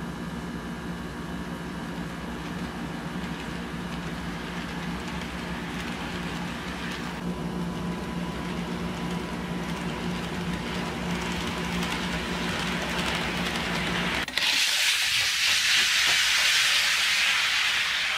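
HO scale model diesel locomotive running along the track with its motor and gears humming steadily. About fourteen seconds in, the sound cuts abruptly to a loud, steady hiss.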